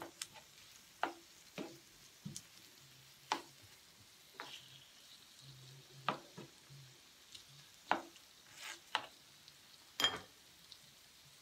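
Nylon slotted spatula scraping and tapping against a nonstick grill pan as sliced onions and green bell peppers are stirred: about ten separate clicks and scrapes at uneven intervals. A faint frying sizzle runs underneath.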